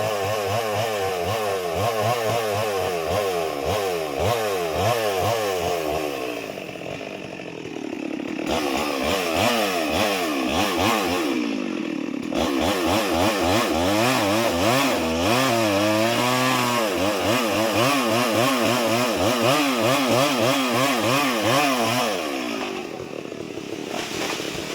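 Chainsaw running at high revs while cutting, its pitch wavering rapidly up and down under load. It drops to a lower, quieter run about six seconds in and again near the end.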